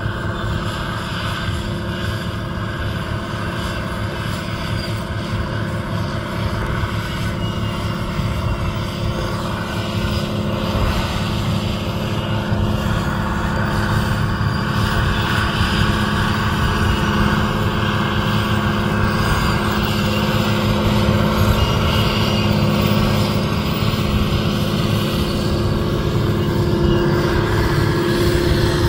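John Deere 7820 tractor's six-cylinder diesel engine running steadily under load as it pulls an air seeder and cultivator through the soil. It grows a little louder from about a third of the way in as the tractor draws closer.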